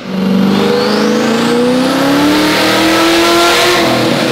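Twin-turbo C8 Corvette's V8 revving up on a chassis dyno: it comes in suddenly and its pitch climbs steadily for about three and a half seconds, then dips near the end.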